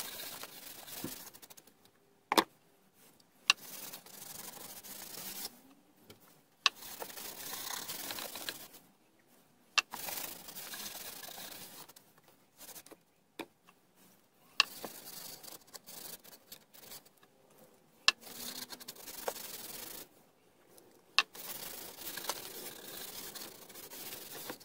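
A cloth rag rubbing wood stain onto a wooden frame in repeated strokes of a second or two, with short pauses between them. About half a dozen sharp knocks come in between.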